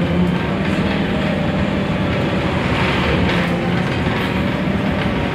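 Cabin noise inside a Scania articulated bus under way: a steady low drone from the engine and drivetrain, mixed with road noise.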